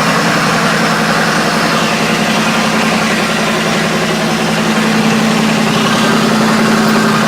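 Bulldozer engine running steadily, very noisy, with an even hum and no revving.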